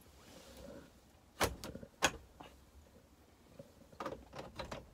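A few sharp clicks and knocks, one about a second and a half in, another about two seconds in, then a quick cluster near the end.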